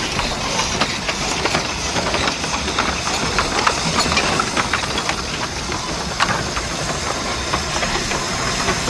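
Tinkerbell miniature steam locomotives hissing steam steadily, with scattered sharp clicks.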